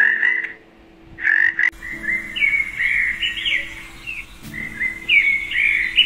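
A frog calling, two calls with a short gap between them, then from about a second and a half in a bird giving a run of short, rising and falling chirps.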